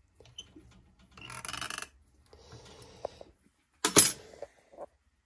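Metal hand tools handled on a steel workbench: a short scraping rasp about a second in, then a sharp metallic clink about four seconds in.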